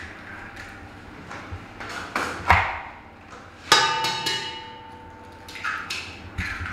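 About five sharp knocks against the stainless steel bowl of a stand mixer. The knock a little after three and a half seconds in sets the bowl ringing with a clear metallic tone that fades over nearly two seconds.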